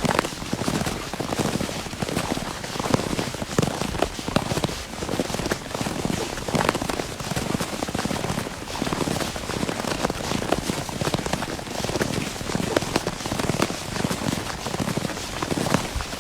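Footsteps crunching through snow at a steady walking pace, each step a short crackly crunch.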